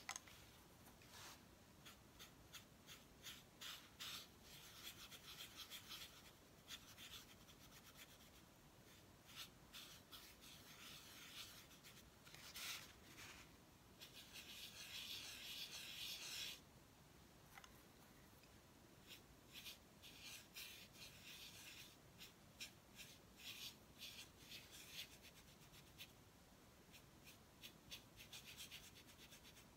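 A small soft brush rubbing copper blush onto the painted shell of a gourd, in faint brushing strokes that come in quick runs. About halfway through there is one longer, steadier rub.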